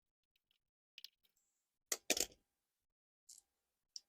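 Small metal parts and tools clicking and clinking as a bike's mechanical disc brake caliper is unbolted from its bracket, with one louder clatter about two seconds in and a few lighter clicks near the end.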